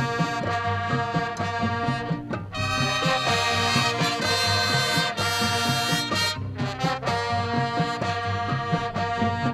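High school marching band playing its competition show live: brass sustaining chords over a steady drum beat.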